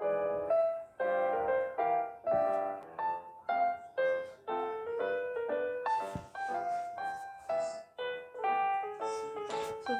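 Background piano music: a melody of single notes played at a moderate pace, each note ringing and fading.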